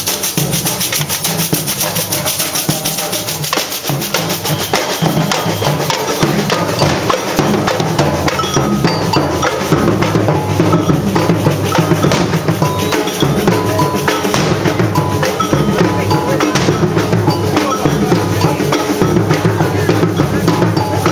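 Drums of a procession band playing, with bass drum and snare beating through a dense, continuous din.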